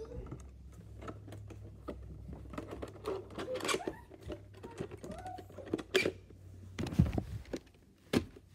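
Handling noise: rapid clicks, taps and rubbing as hands handle a plastic VHS clamshell case, with two heavier thumps near the end.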